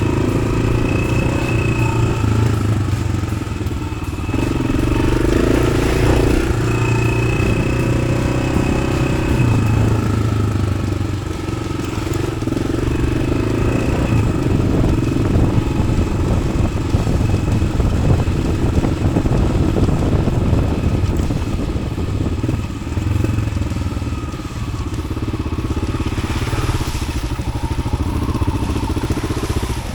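A Yamaha XT600's single-cylinder four-stroke engine, breathing through an Arrow aftermarket exhaust, runs at low to middling revs as the bike is ridden off-road. The throttle rises and eases off, with some clatter from the bike over rough ground.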